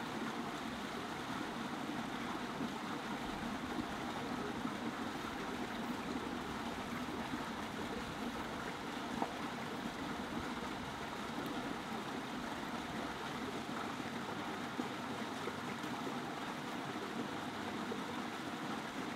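Small mountain brook running over rocks: a steady, even rush of water.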